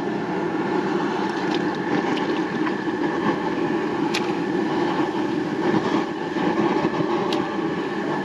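Gas jet burner running steadily under a large boil pot. There are two brief sharp sounds, about four and seven seconds in, as live marron are dropped into the pot.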